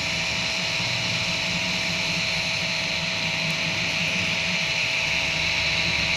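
Kingroon 3D printer running a print: a steady whir from its cooling fans over the hum of the stepper motors driving the print head and bed.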